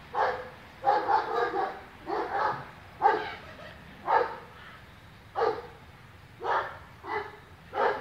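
A dog barking repeatedly: about a dozen short barks, roughly one a second, some coming in quick pairs or threes.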